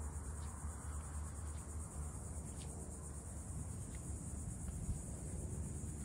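Steady, high-pitched drone of insects trilling, over a low rumble, with a few faint short chirps.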